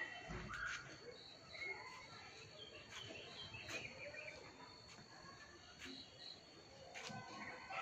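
Faint outdoor ambience: scattered short bird chirps over a steady high-pitched insect trill, with a few light clicks.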